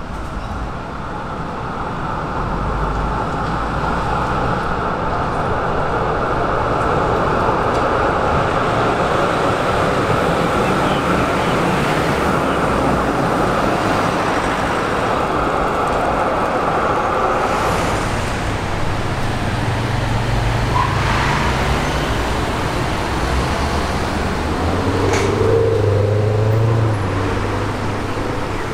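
Trams and cars passing on a city street: steady traffic noise, with a lower engine rumble in the second half.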